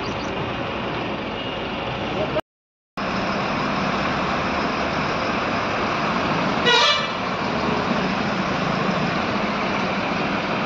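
Steady traffic and engine noise from a queue of trucks and buses in a jam, with one short vehicle horn blast about seven seconds in. The sound cuts out for about half a second a little after two seconds in.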